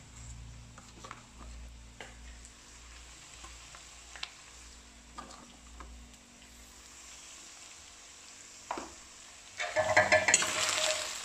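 A few light clicks of a small plastic spoon in a plastic spice box. Then, about ten seconds in, chunks of buffalo meat start sizzling loudly as they fry in oil in a kadhai.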